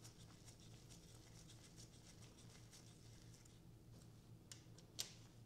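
Near silence: faint light ticks and scratches of small screws on the KTM 500 EXC-F's oil filter cover being run in by hand, with one sharper click about five seconds in.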